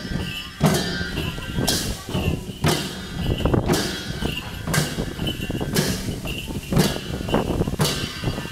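Several Kirati chyabrung (two-headed barrel dhol) drums being beaten together for the chyabrung dance, with sharp strokes in a steady rhythm about once a second. Chatter from the people around them is heard underneath.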